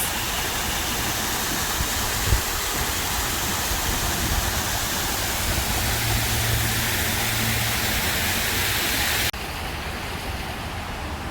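Steady rush of water falling in fountain cascades. About nine seconds in it suddenly becomes quieter and duller.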